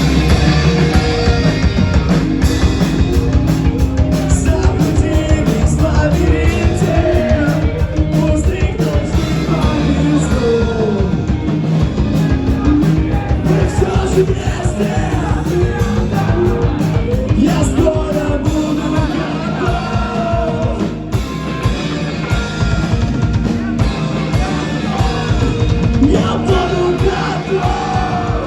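Live rock band playing with drums, guitars and shouted singing.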